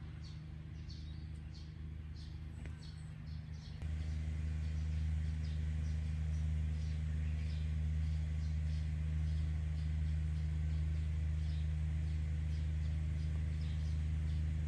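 A steady low mechanical hum, like an engine running, that steps up in level about four seconds in, with small birds chirping throughout.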